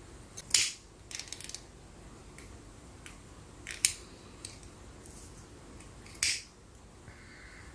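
Three short, sharp, crisp snaps a few seconds apart, with a brief patter of small clicks after the first, from craft materials being handled.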